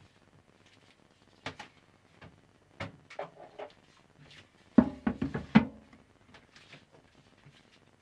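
Scattered knocks and clatter of kitchen things being handled. A cluster of heavier wooden knocks about five seconds in comes as a wooden cutting board is laid across a stainless sink. A sharp knock with a brief ring at the very end is a glass measuring cup set down on the board.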